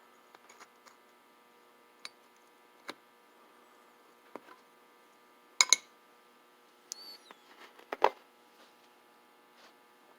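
Small metal parts of an antique Sargent mortise lock clicking and clinking as they are handled and fitted into its cast iron case: scattered light taps, a sharper double click about halfway through and a few quick taps near the end, over a faint steady hum.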